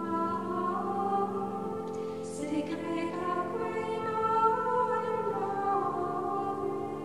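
Background music: choir-like singing voices over a held low note.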